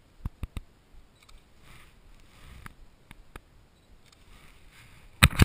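Wind buffeting the camera's microphone in soft gusts, with scattered sharp clicks and a cluster of loud knocks near the end from the handheld camera being handled.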